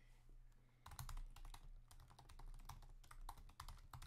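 Typing on a computer keyboard: faint, quick, irregular key clicks starting about a second in.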